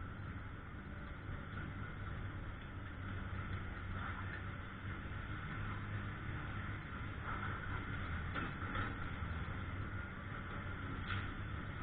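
An engine running steadily with a low hum, with a few faint knocks.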